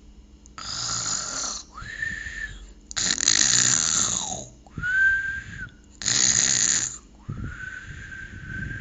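Cartoon-style lion snoring, three times over: each time a loud rasping snore on the in-breath, then a long whistle on the out-breath.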